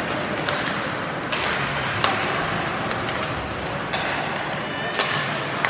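Ice hockey play: sharp clacks of sticks and puck, about six in the space of a few seconds, over the steady noise of the rink.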